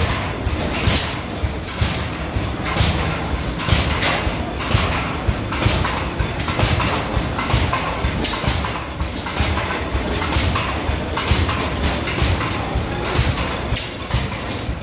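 Old stationary gas engines running slowly, giving a steady train of sharp knocking beats, about one and a half a second, over a low rumble.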